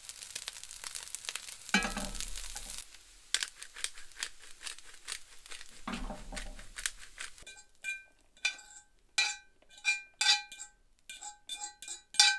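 Fried rice sizzling in a cast iron skillet as a fork stirs it. From about seven seconds in, a fork scrapes and knocks against the cast iron skillet about ten times, each sharp clink ringing briefly, as the rice is scraped out onto a plate.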